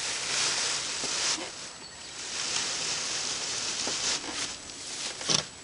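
Loose hay rustling as it is handled and stuffed into a homemade hand hay baler, in several swells of a second or so each, with a short knock near the end.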